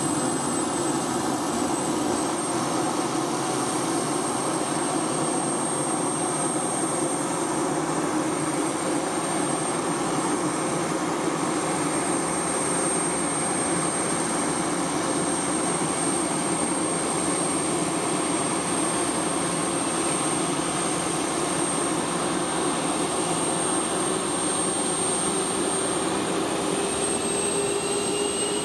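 F-16 fighter's jet engine running steadily on the ground, a loud roar with a high whine over it. Near the end some tones begin to rise in pitch as the engine spools up.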